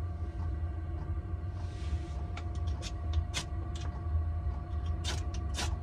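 Scattered light clicks and taps of cookware being handled at the stove, over a steady low hum, with a brief soft hiss about two seconds in.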